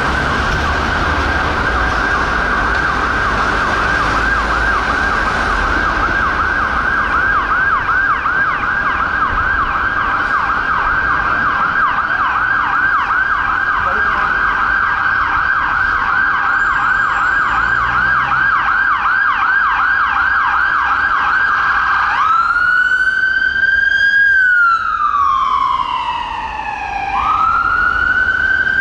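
Electronic siren of a St John Ambulance Mercedes-Benz Sprinter children's intensive care ambulance sounding a fast yelp. Near the end it switches to a slow wail that rises, falls and rises again.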